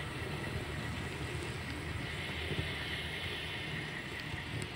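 Train running: a steady low rumble with a faint, steady high whine over it and a few light ticks.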